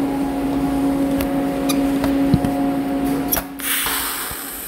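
Steady electrical hum with a few light clicks as the TIG torch is set on the plate, then about three and a half seconds in a sharp click and a steady hiss as the TIG arc strikes for the cap pass.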